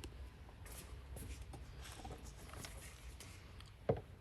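Faint handling sounds in a small room: light scratching and small taps of tools and parts being set up on the desktop before drilling, with one louder knock near the end.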